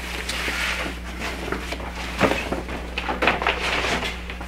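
A translucent pressing sheet rustling as it is peeled off a quilt top and carried away, with a few light knocks along the way.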